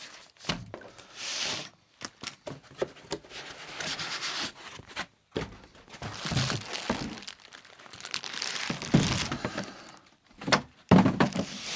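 Cardboard and plastic packaging rustling and crinkling, with scattered thunks and knocks, as a portable power station is unpacked from its box.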